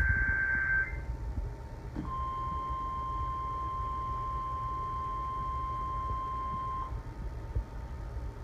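NOAA Weather Radio test broadcast: the tail of a SAME digital header, a two-tone data burst, ends about a second in. About a second later the 1050 Hz warning alarm tone starts and holds steady for about five seconds before cutting off sharply, over a low rumble.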